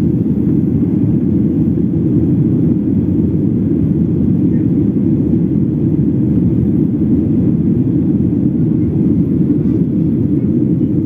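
Steady low rumble of an aircraft in flight, heard from on board, even in level with no distinct tones.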